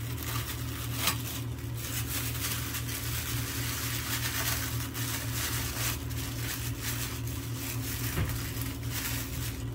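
Clear plastic bag crinkling and rustling as it is handled, in irregular crackles, over a steady low hum.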